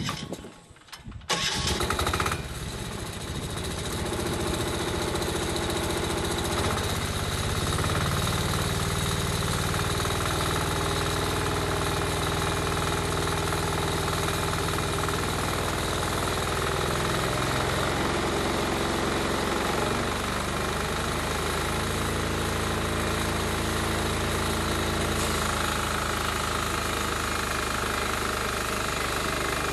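The engine of a homemade bandsaw sawmill starting up about a second in, then running steadily, its pitch shifting now and then.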